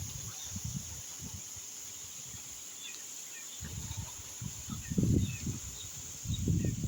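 Rural outdoor ambience: a steady high-pitched insect drone with scattered short bird chirps. Irregular bursts of low rumbling come and go, loudest about five seconds in and again near the end.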